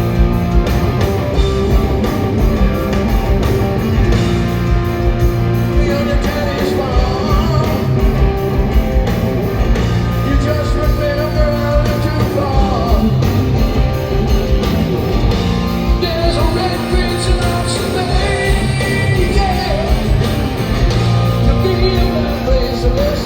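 Live rock band playing, with electric guitar, bass and drums, and a male lead vocalist singing over it, recorded from the audience.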